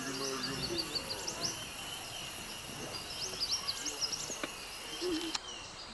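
Forest ambience: a steady high insect drone with a second, lower one beneath it, and runs of short high chirps from birds. The highest drone cuts off suddenly near the end.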